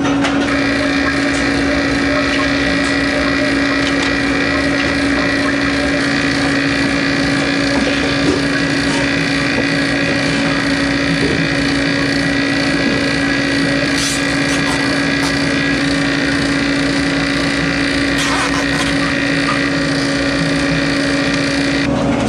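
Vacuum pump running steadily, pulling a vacuum on a reach-in cooler's refrigeration circuit through the gauge hoses and a valve core removal tool. A higher steady whine comes in just after the start and stops shortly before the end.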